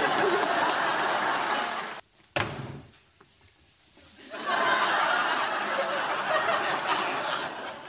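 Sitcom studio audience laughing, breaking off about two seconds in. A single short knock follows, and the audience laughs again from about halfway through until near the end.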